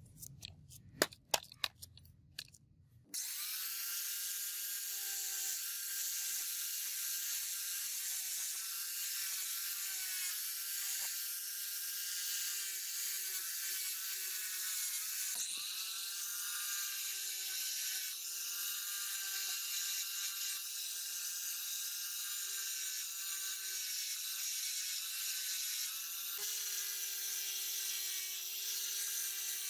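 Faint hand-sanding with a few clicks, then about three seconds in a power tool's polishing disc starts and runs steadily with a whine and a hiss as the lighter's metal parts are held against it. Its pitch dips briefly twice, about halfway and again a few seconds before the end.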